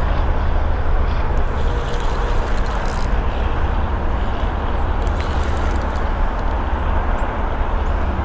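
Spinning reel being cranked while a hooked channel catfish is reeled in, with a few faint ticks, under a loud, steady low rumble.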